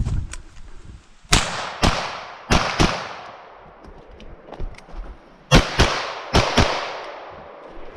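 Gunshots fired in quick pairs: two pairs starting just over a second in, then two more pairs about five and a half seconds in, each report sharp with a ringing tail.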